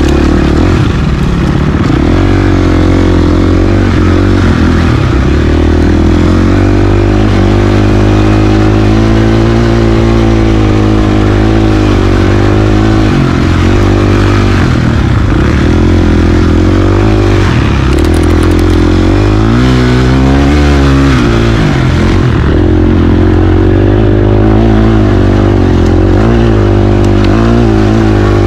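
KTM 350 XC-F single-cylinder four-stroke dirt bike engine, heard from on the bike, its pitch rising and falling steadily as the throttle is worked along the trail, with the swings strongest around the middle.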